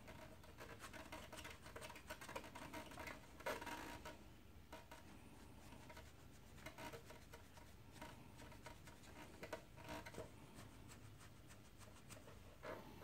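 Faint scratching and rubbing with scattered light clicks, from cleaning around a motorcycle's front brake caliper pistons by hand, with a slightly louder scrape twice.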